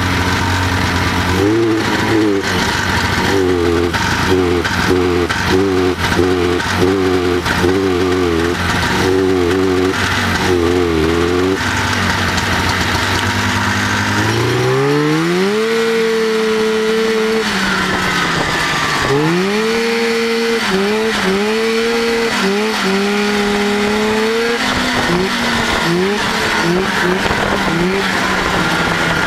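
1989 Arctic Cat Jag snowmobile's Suzuki 500 cc two-stroke engine running rough and skipping, its pitch wavering up and down over and over. About halfway through it revs up, then stumbles and cuts in and out repeatedly under throttle. The misfire comes only with the hand warmers switched on, a sign of an electrical fault.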